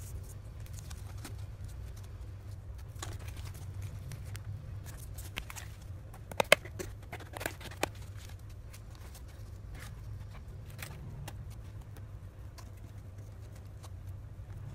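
Cardboard pieces being handled and fitted by hand, with a few sharp clicks and taps in the middle, over a steady low hum.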